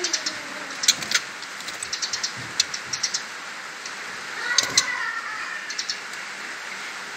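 Young white-rumped shamas moving about in their cage: scattered short, sharp ticks and clicks, busiest about four and a half seconds in, over a steady background hiss.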